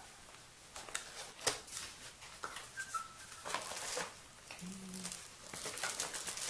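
Cardboard box being opened by hand: the top flap pulled open and the box handled, giving a string of light clicks, scrapes and rustles with a couple of brief squeaks.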